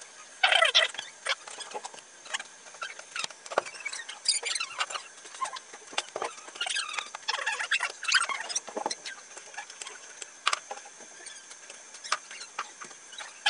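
Fast-forwarded, sped-up sound: an irregular run of short high-pitched chirps and squeaks with quick pitch glides, over a faint steady high tone.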